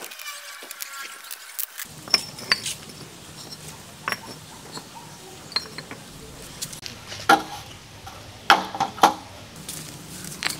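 Hollow clay bricks knocking and clinking against one another and the concrete as they are set down and shifted by hand: scattered sharp knocks, the loudest a quick cluster near the end.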